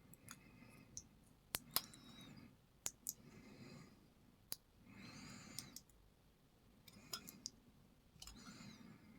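Small, sharp metal clicks and taps of a padlock and its shim being handled during disassembly, a few scattered clicks, some in quick pairs. Soft, slow breathing close to the microphone runs underneath.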